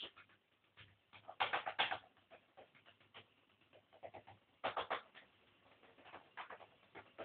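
Short bursts of rapid clicking and rattling on a wooden parquet floor as a dog plays with a knobby toy ball, twice louder about a second and a half in and near five seconds in.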